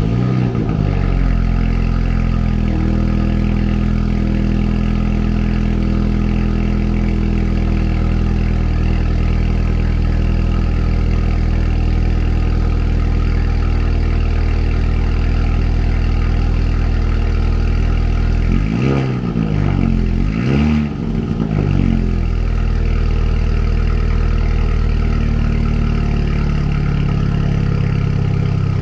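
A 2021 Mini Cooper JCW's turbocharged four-cylinder engine idling through its exhaust just after starting. The revs sag from the start-up flare into a steady idle. About twenty seconds in, the throttle is blipped twice in quick succession.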